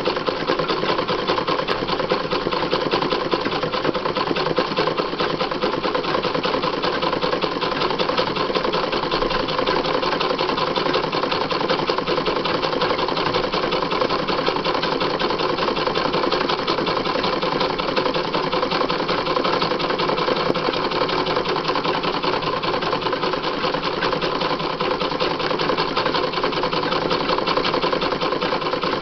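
Sewing machine running steadily without a break, stitching free-motion embroidery as the hooped fabric is moved by hand under the needle.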